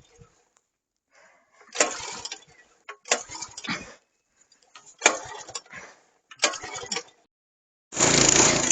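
Four short rasping bursts with sharp starts, a second or more apart. Near the end the snowblower's engine starts up and runs loudly.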